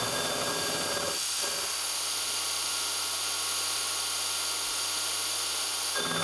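Milling machine running a disc gear cutter through a steel gear blank: a steady machining whine and hiss over a constant low hum. The lower cutting noise drops away about a second in and comes back near the end.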